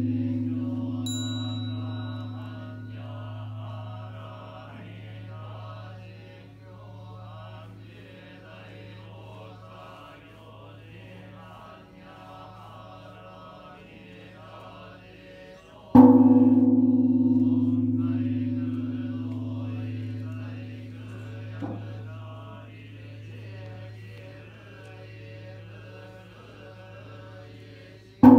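Kenchō-ji's great bronze temple bell (bonshō), struck with a swinging wooden beam, rings out with a deep hum that fades slowly over many seconds. It is struck again about halfway through and once more right at the end. Buddhist monks chant a sutra underneath.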